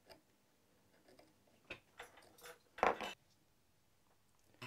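A few faint clicks and short scrapes from small metal tuner parts being handled and set in place on a wooden bench pin, the loudest a brief scrape about three seconds in.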